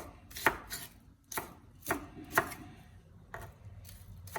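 Knife chopping onions: separate, unhurried strikes, about one or two a second.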